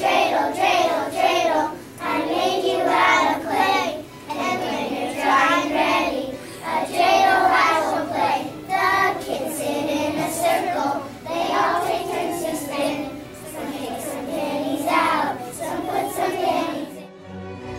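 A group of young children singing together in unison, in short phrases with held notes. Near the end the singing cuts off abruptly and recorded bowed-string music begins.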